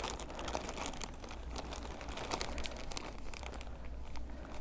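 A mail package being torn open by hand, its wrapping crinkling and rustling in a run of irregular crackles.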